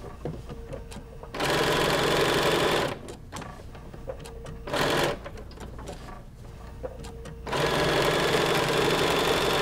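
Domestic sewing machine sewing a straight stitch with an open-toe appliqué foot, in three runs with pauses between. The first run lasts about a second and a half, the second is a short half-second burst, and the third is about two seconds near the end.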